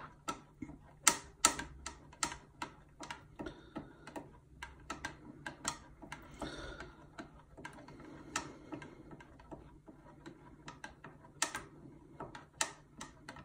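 Metal spoon clinking against the inside of a glass mug while stirring coarse-ground coffee into cold water: irregular light clicks, two or three a second.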